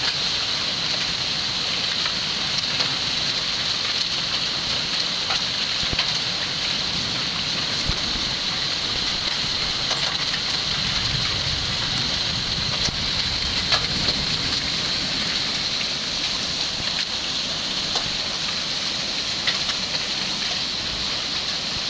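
Heavy thunderstorm downpour of driving rain and hail: a steady, loud hiss with scattered sharp ticks of hailstones striking.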